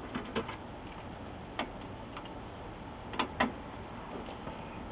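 Small hand-tool clicks: a screwdriver and screws tapping and clicking against the monitor's sheet-metal chassis while the corner screws of the power supply assembly come out. There are a few sharp clicks scattered through, with two close together about three seconds in.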